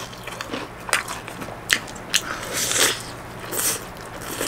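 Biting into and chewing crispy-battered fried chicken close to the microphone: the coating crunches several times with wet chewing in between.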